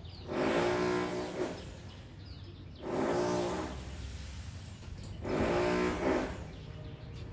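A baby bird giving three harsh begging calls, each about a second long and spaced a couple of seconds apart.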